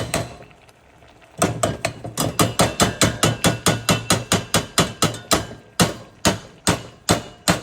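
Rapid hard knocks as a honey container is tapped to get the honey out. A pause of about a second, then knocks at about four or five a second that slow to two or three a second near the end.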